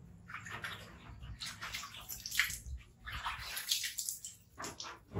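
Water splashing and dripping as a wet baby monkey is washed by hand, in a string of short, irregular splashes.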